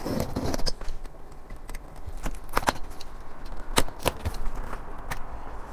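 Hands handling a cardboard shipping box: a brief rustle at the start, then scattered sharp taps and knocks at irregular intervals.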